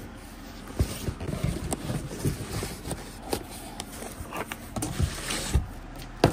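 Cardboard boxes being handled: a white inner box sliding and scraping out of its outer cardboard shipping carton, with irregular rustling and several dull knocks.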